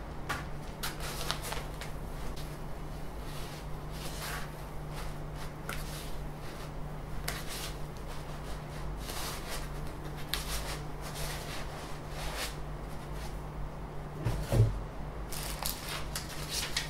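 Clear plastic packaging crinkling and rustling in irregular handfuls as a delta 3D printer is unwrapped, with one low thump about three-quarters of the way through, over a steady low hum.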